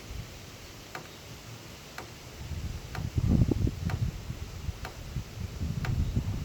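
Water dripping after rain, single drips falling at an even pace of about one a second, with a low rumble underneath from about two and a half seconds in.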